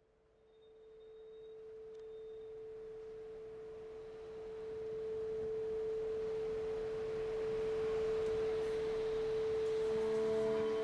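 Opening of a background music track: one steady held drone note fades in from silence under a slowly swelling hiss, and plucked notes come in near the end.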